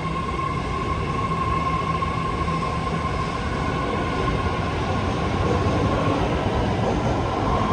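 BART commuter train pulling out of the station: a steady rumble of wheels on the rails, with a steady high whine that fades about six seconds in.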